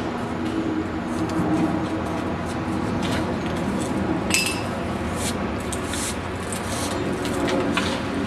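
Scattered light metallic clinks and clicks over a steady low machine hum, the sharpest one about four seconds in with a short ring, like pieces of cut iron knocking together.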